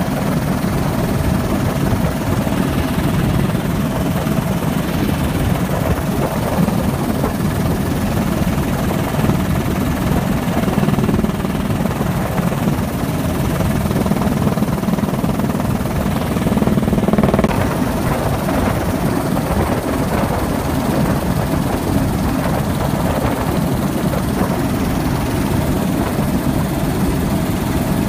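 Helicopter engine and rotor running, heard from inside the cockpit as a loud, steady drone that swells briefly about two-thirds of the way through.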